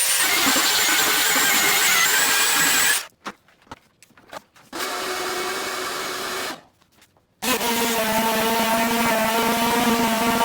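Power tools running in short, separately cut clips. A loud tool with a high whine stops suddenly about three seconds in. After a near-silent gap with a few clicks comes a quieter motor, then another gap. From about seven and a half seconds a motor runs steadily with a whine.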